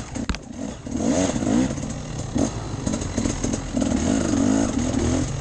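Off-road enduro motorcycle engine revving up and down again and again as the throttle is worked, with a brief drop and one sharp knock about a third of a second in.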